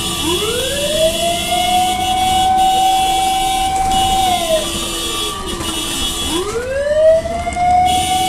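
Fire truck siren winding up and down in a slow wail. It rises to a high pitch over about a second, holds there for about three seconds, winds down for about two seconds, then winds up again near the end.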